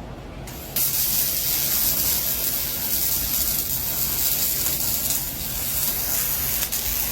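A welding arc on steel strikes suddenly about a second in, then burns with a steady hiss.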